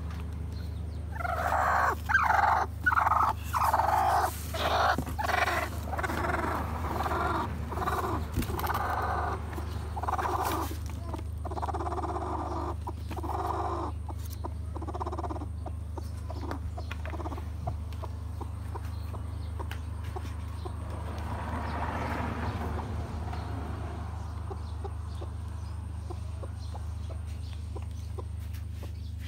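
Broody hen on her nest clucking in a run of short calls, one or two a second, for about the first thirteen seconds, then more faintly. A steady low hum runs underneath.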